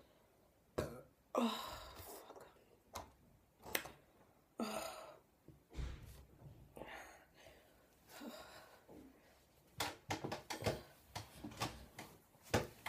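A woman burping and breathing hard after gulping cola: a string of short, separate burps and breaths, with a few sharp clicks near the end.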